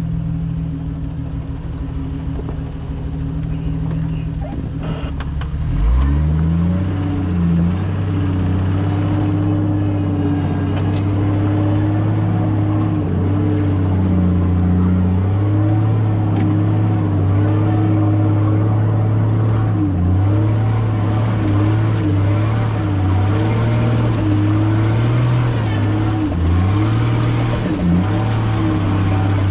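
Off-road 4x4 engine running steadily under load on a trail climb. Its pitch drops and rises back up about six seconds in, then wavers slightly up and down as the throttle changes.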